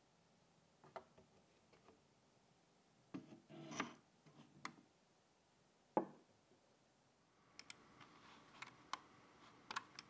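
Faint handling of a graphics card: light taps and a short rustle, then a sharper knock about six seconds in, like the card being set down on a hard surface. A few light clicks follow near the end.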